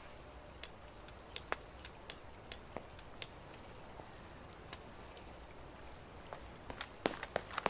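Faint steady background with scattered, irregular sharp clicks and taps, coming more often near the end.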